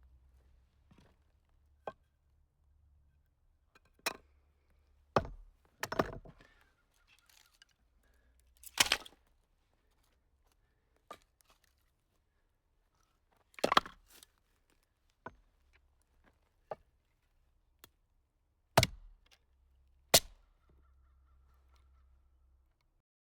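A series of sharp knocks, about a dozen, spaced unevenly one to three seconds apart. Some come doubled or with a brief rattle after them.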